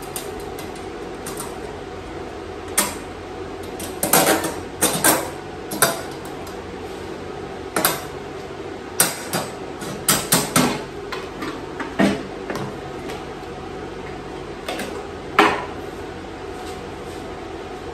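Steel grill-frame pieces clinking and clanking as they are handled and set down on a steel welding table: a dozen or so irregular metal knocks, the loudest late on.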